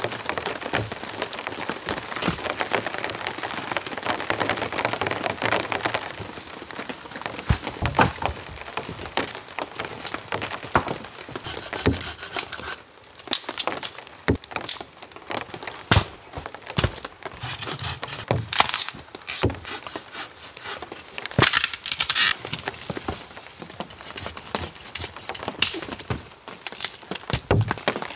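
Damp sticks and twigs being snapped and handled for firewood: irregular sharp cracks and knocks, with a few short crinkly rustling stretches.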